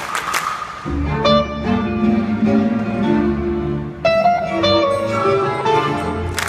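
Symphony orchestra with electric guitar playing live: bowed strings hold low sustained notes under higher lines. There is a crash near the start, and a louder chord comes in about four seconds in.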